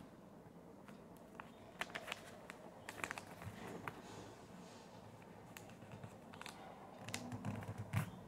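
A sheet of paper being folded and creased flat by hand on a tabletop: faint, scattered crinkles and light taps.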